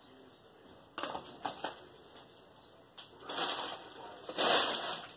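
Several short rustling, crunching handling noises, the longest and loudest near the end.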